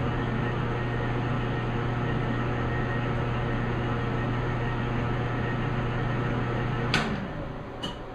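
Metal lathe's electric motor running steadily with a low hum while knurling steel, then switched off with a sharp click about seven seconds in, the motor winding down with a falling tone. A second small click comes near the end.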